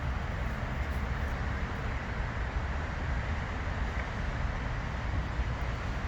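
Wind buffeting the phone's microphone: a low, fluttering rumble over a steady hiss of outdoor noise.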